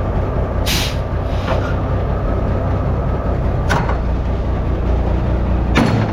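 Semi tractor's diesel engine idling steadily, with four short hisses of air from the air-brake system as the trailer is being unhooked.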